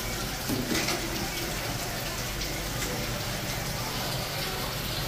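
Steady running water from a tap, with a low hum and indistinct voices underneath.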